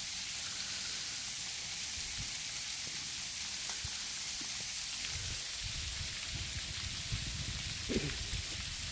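Freezing rain falling steadily on ice-glazed trees and ground, an even, fine hiss like frying. From about halfway through, a low rumble of wind on the microphone joins it.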